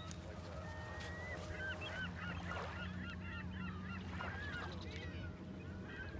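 A flock of birds calling at once, many short squawking calls overlapping, with a rising whistle about a second in, over a low steady hum.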